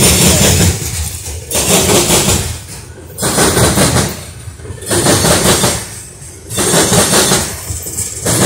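A freight train of coal hopper cars rolling past close by, its wheels clattering and rumbling in loud surges that come back about every second and a half, roughly once per car.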